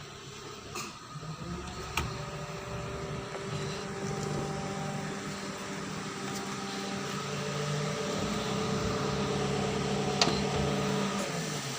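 Daihatsu Sirion car engine idling steadily, with two sharp clicks, one about two seconds in and one near the end.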